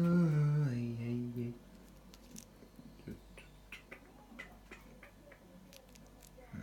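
A man humming a long, falling "hmm" that ends about a second and a half in. Then faint scattered clicks and rustles of hands handling small objects.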